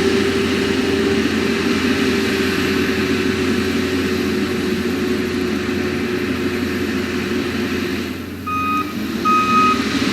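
Skid steer engine running steadily as it drags a toothed leveling attachment over rough ground. Near the end the engine speeds up and its backup alarm starts beeping about once a second as it reverses.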